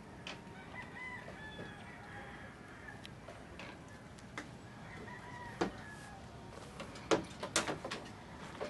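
Chickens clucking and crowing, short pitched calls over a steady yard background, with a few sharp clicks in the second half.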